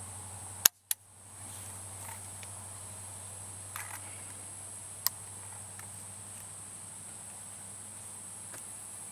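A single shot from a Rossi Matched Pair youth .410 shotgun, a sharp report about a second in with a quick echo, after which the sound briefly drops out and returns. Crickets chirp steadily in the background.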